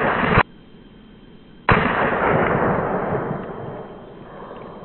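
Shot from a .22 Savage Rascal rifle firing a pellet with a Ramset nail-gun powder charge, heard twice: a loud blast that cuts off abruptly just after the start, then another that starts suddenly just under two seconds in and fades slowly.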